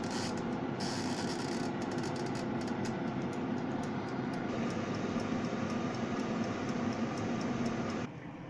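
Air fryer running with its fan blowing: a steady whirring hum, with faint regular ticking of about three or four a second through the middle. The noise drops off sharply near the end.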